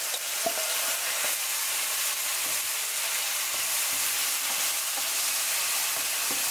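Chicken pieces frying in a nonstick pan, a steady sizzle, as the rest of the marinade goes in and the pieces are stirred with a wooden spoon, with a few small knocks of the spoon on the pan.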